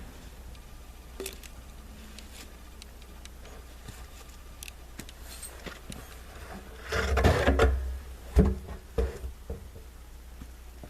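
Hands handling and repositioning parts: a few light clicks, then a scraping rub about seven seconds in, followed by several sharp knocks.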